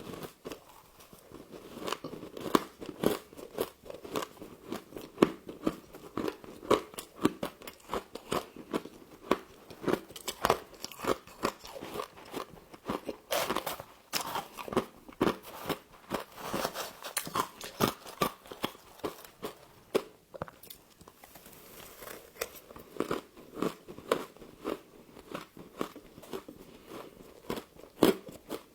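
Close-up crunching and chewing of humidifier frost: dense, rapid crisp crunches, several a second, with a few louder bites throughout.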